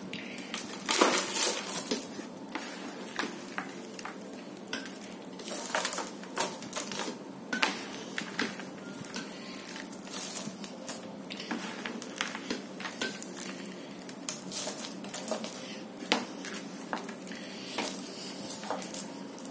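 Handfuls of sun-dried potting-soil mix scooped by hand from a plastic tub and dropped into a plastic planter: irregular crumbling and pattering of soil, with scattered short clicks and knocks.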